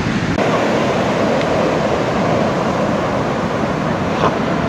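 Heavy surf breaking and washing through whitewater: a steady, dense rush of noise.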